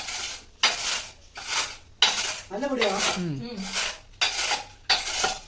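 Lay's potato chips being crushed in a bowl: about seven crunching strokes at a steady pace, with utensils knocking against the bowl.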